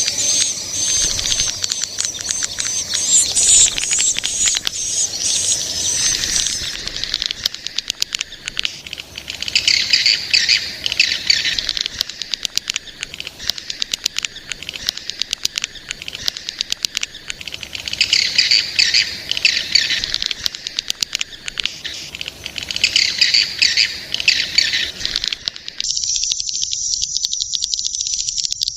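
Edible-nest swiftlets twittering, rapid high-pitched chirps that come in repeated bouts. Near the end it changes abruptly to a steady, high, insect-like trill.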